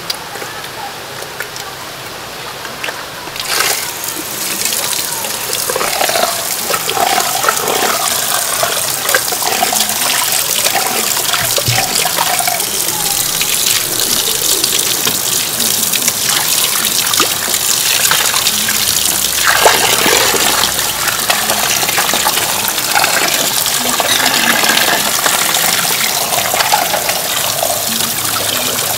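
Water from a hose gushes into a stainless steel sink and splashes over a large grass carp as it is rinsed and gutted by hand, starting about three and a half seconds in.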